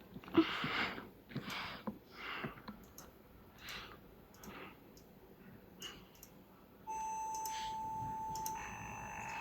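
A few scattered clicks and short rustling noises, then about seven seconds in a loud, steady electronic beep tone starts. About a second and a half later it steps to a higher, two-note tone.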